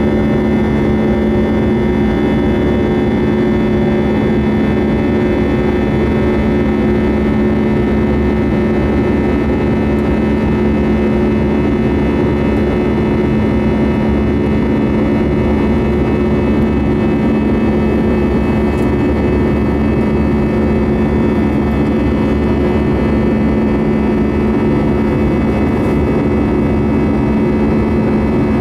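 Airbus A320 jet engine and airflow heard inside the passenger cabin during the climb after take-off: a loud, steady drone with a rushing hiss and steady humming tones.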